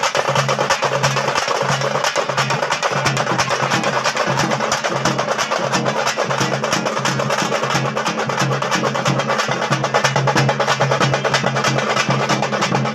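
A troupe of thappu (parai) frame drums beaten together with sticks in a fast, driving rhythm of dense, rapid strokes.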